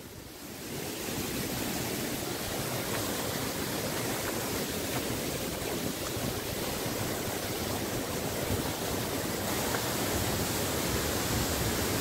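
Waterfall pouring down a rock face onto a stony streambed: a steady rush of falling water that swells up in the first second and then holds even.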